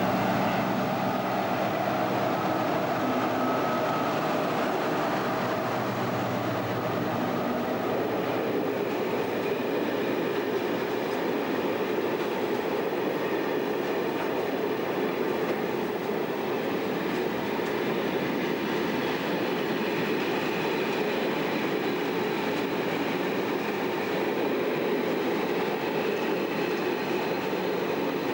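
A heavy freight train passing close by. A Class 60 diesel locomotive's engine works hard as it goes by, and after about eight seconds a steady rumble and clatter of loaded freight wagons rolling over the track takes over.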